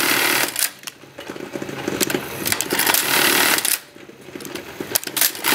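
Juki bartack industrial sewing machine running in bursts, a fast mechanical clatter that starts and stops three times as it is pushed into action, working as it should.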